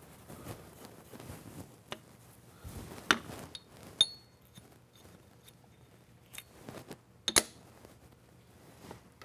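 Scattered metal clinks and knocks as tools and parts are handled at a metal lathe, with three sharper strikes; one about four seconds in rings briefly, like steel tapping steel.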